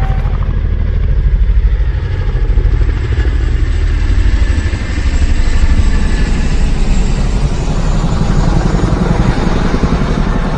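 A motor-vehicle engine running with a deep, pulsing rumble. Its loudness swells and dips slightly, with a small dip about halfway through.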